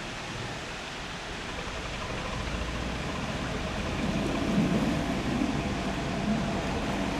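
Narrowboat engine running and growing louder as the boat approaches, its low rumble strongest from about four seconds in, over a steady rushing noise.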